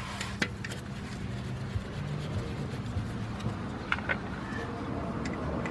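Low steady background hum with a few faint metallic clicks as a rear brake caliper is set onto its bracket and its bolts are started by hand.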